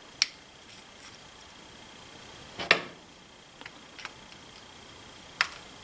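Sharp clicks and taps of a screwdriver and small metal parts as the last screw is driven into a Savage 64 rifle's trigger assembly. Three louder clicks come about two and a half seconds apart, the loudest near the middle, with a few fainter ticks between them.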